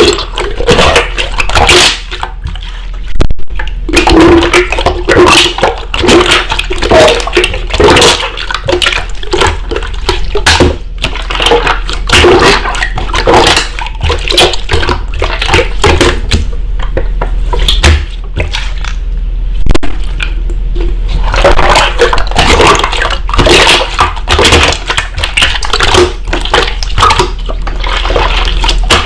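Slime being squished and kneaded by hand: a continuous run of wet squelches and quick clicking pops.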